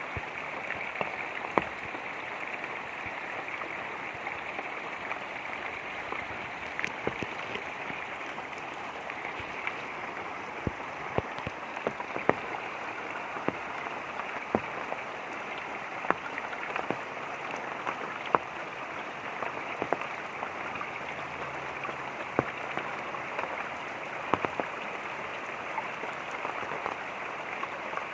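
Light rain falling, with irregular single drops ticking sharply over a steady rush of running water.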